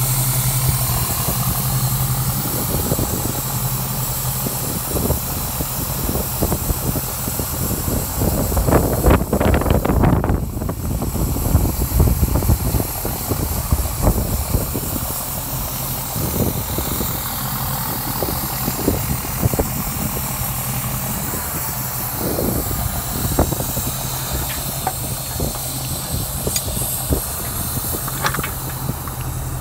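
Service truck's engine idling steadily, with a rushing noise that swells about nine to eleven seconds in.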